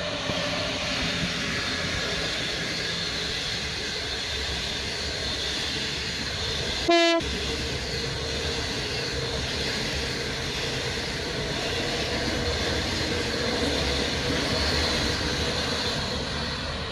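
Train running sound: a steady rumble and rail noise, with one short horn blast about seven seconds in.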